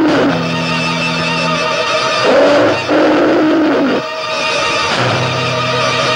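Dramatic film background music: held chords that break off and change about two and four seconds in, with a bending, sliding line in the middle.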